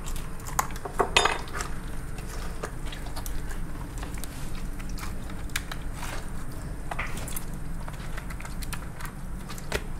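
Raw lobster tail shell being pried and pulled apart by hand to free the meat: scattered clicks and cracks of shell, with a louder crackling cluster about a second in.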